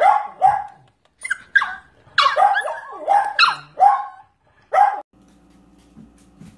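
Corgi puppy giving about ten short, high yapping barks, each dropping in pitch, in protest at being kissed. About five seconds in, the barking stops abruptly and only a faint steady low hum remains.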